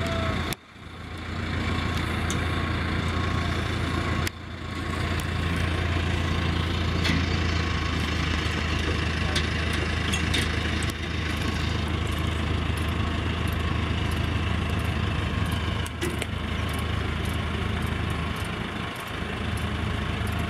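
Diesel engine of a Caterpillar 416B backhoe loader running steadily with a low hum. The sound drops sharply twice in the first few seconds.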